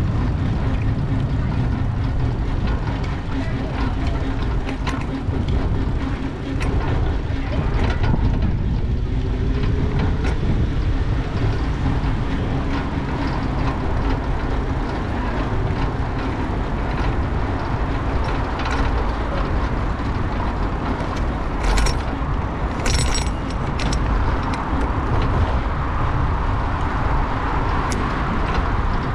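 Riding noise from an old, rusty bicycle on a city bike path: steady wind and road rumble with small clicks and rattles from the bike, and a couple of sharper rattles about 22 and 23 seconds in.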